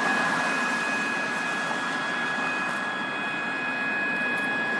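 System Sensor MA/SS-24 fire alarm horn set to an 800 Hz steady tone, sounding one continuous unbroken tone. A steady rushing background noise lies underneath it.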